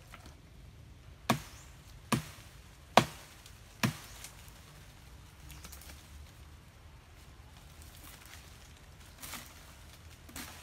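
A hand-held blade chopping into a woody branch: four sharp chops a little under a second apart, the third the loudest, followed by two fainter knocks near the end.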